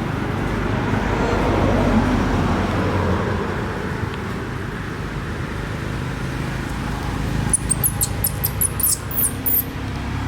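Steady traffic noise, swelling as a vehicle passes in the first few seconds. Near the end comes a quick run of about ten very high, short squeaks.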